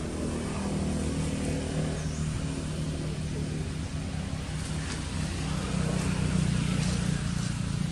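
A motor vehicle's engine running steadily as a low hum, a little louder about six seconds in.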